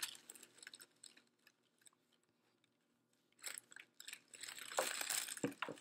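Faint crinkling and rustling handling noise as a high-heeled shoe and its packaging are handled close to the microphone. It comes in short bursts, goes nearly quiet for about two seconds in the middle, then picks up again with a few sharp knocks near the end.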